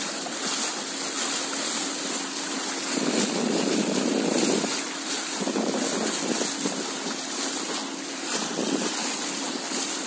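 A motorboat running steadily on the river, with a faint engine hum under rushing water and wind noise on the microphone. The noise swells several times, near the middle and again near the end.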